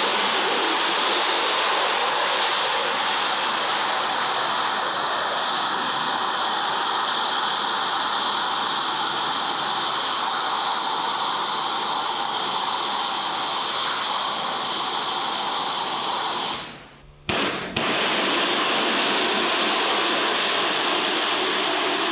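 Kärcher high-pressure washer spraying a water jet onto the fins of removed car radiators to wash out the dirt, a steady hiss of spray. It breaks off for about a second near the end and then starts again.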